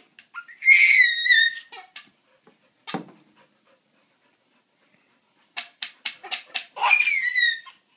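A dog giving two high-pitched whines that fall in pitch, each under a second long, one about a second in and one near the end. Sharp clicks and knocks come in between, a quick run of them just before the second whine.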